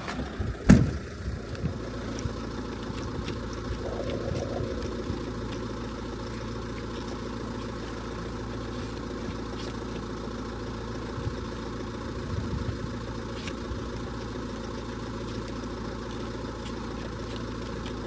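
A van's engine idling steadily, with a single sharp click a little under a second in and a few faint knocks later.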